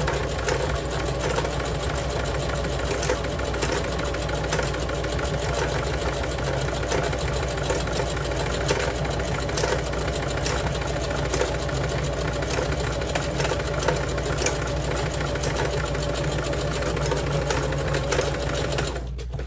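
Singer Heavy Duty sewing machine running steadily while stitching through climbing rope: a steady motor whine under rapid clicking. It stops shortly before the end.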